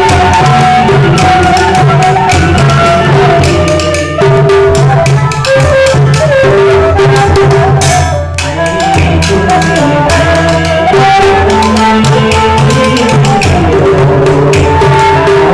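Traditional Vietnamese chèo ensemble music: a hand-played rope-laced barrel drum (trống cơm) and a small stick-struck drum keeping a steady beat under sustained melodic notes.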